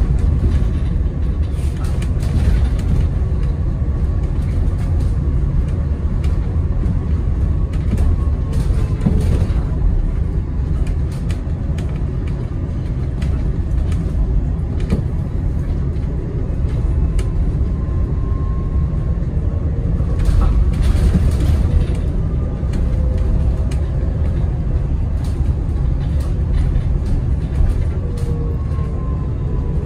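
Inside a BYD Alexander Dennis Enviro200EV battery-electric bus on the move: a steady low road rumble with scattered rattles and knocks, and a faint whine from the electric drive that rises and falls in pitch with speed, falling away near the end.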